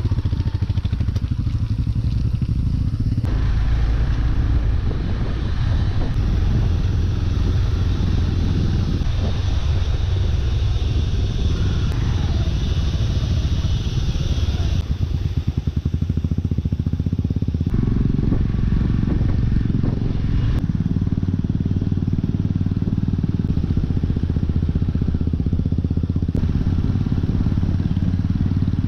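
Motorcycle engine running while riding a dirt trail, heard from the bike itself, with a strong low rumble. The sound changes abruptly several times where the footage is cut between stretches of trail.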